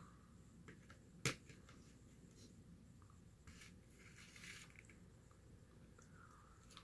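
Near silence: room tone, with one short sharp click a little over a second in.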